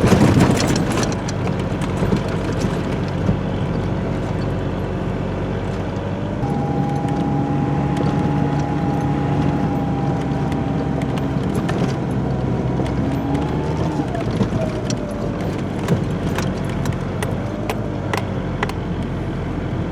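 Truck engine and tyres heard from inside the cab while driving on snow. The engine note steps up about six seconds in, holds, then bends and drops back around fourteen seconds.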